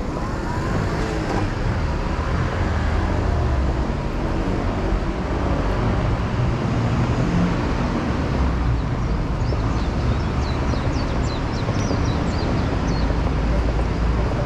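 Steady city street ambience dominated by the rumble of road traffic, with a run of short, faint high chirps in the last few seconds.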